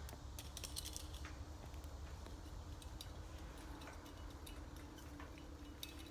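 Scattered light clicks and taps of climbing gear and hardware against a steel lattice tower as a climber works on it, over a steady low rumble.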